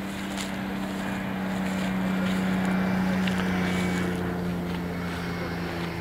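A steady engine drone, swelling and then easing off while its pitch sinks slightly, with light wind on the microphone.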